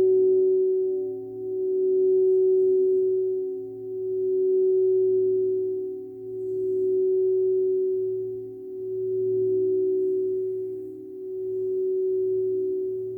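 Crystal singing bowl ringing with one steady tone, its loudness swelling and dipping evenly about every two and a half seconds.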